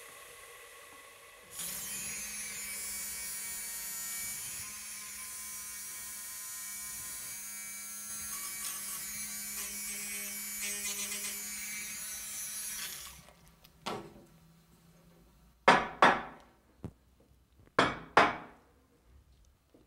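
Espresso machine running to make cappuccino: a steady hum under a loud hiss that starts suddenly and cuts off after about eleven seconds. Then a few sharp clinks and knocks of cups and crockery.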